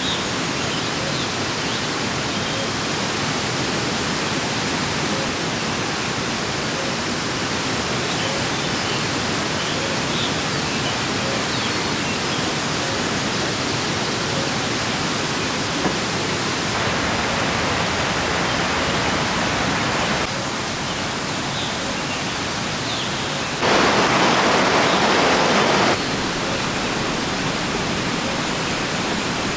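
Steady rushing hiss of water in a forest, with a few faint high chirps over it. The rushing grows louder for about two seconds near the end.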